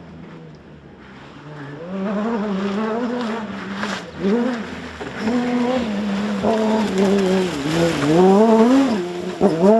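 Off-road 4x4 rally car engine revving hard, its pitch climbing and dropping again and again through gear changes and lifts, growing louder as the car approaches and loudest near the end, over a hiss of tyres and spray on the wet track.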